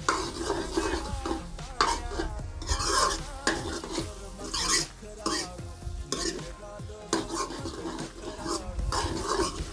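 Steel ladle scraping round a metal kadhai, stirring and turning spiced potato samosa filling as it fries, with a light sizzle underneath. The scraping strokes come about one or two a second.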